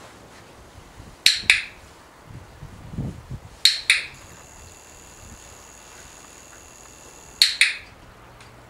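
A hand-held dog-training clicker clicked three times, a few seconds apart, each click a quick press-and-release double snap. Each click marks the dog's correct behaviour, resting its chin on the dice, for a reward.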